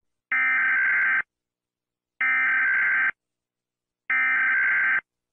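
US Emergency Alert System SAME header: three bursts of digital data tones, each just under a second long with about a second of silence between them, marking the start of an emergency alert broadcast.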